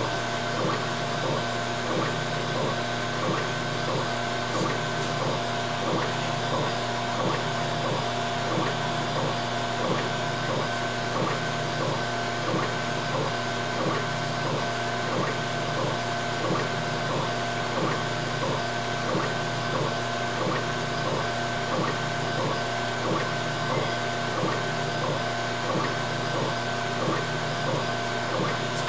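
Laser cutter raster-engraving an image into wood: the laser head's carriage shuttles back and forth in a fast, even repeating rhythm over a steady machine hum.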